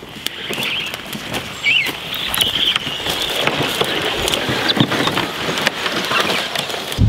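Wooden cedar strip canoe being dragged up a riverbank over leafy ground plants, its hull rustling and scraping through the vegetation with many small crackles and snaps.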